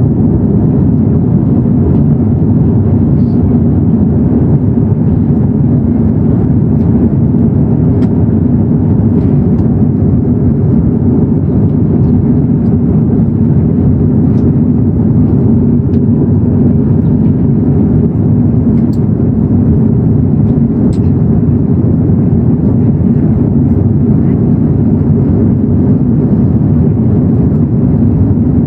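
Steady low rumble of an airliner, as heard inside the cabin, holding even and unchanged throughout.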